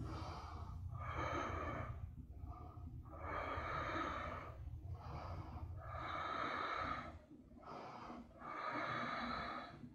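A woman breathing audibly and evenly close to the microphone: slow, rushing in-and-out breaths, each lasting about a second, with short pauses between them.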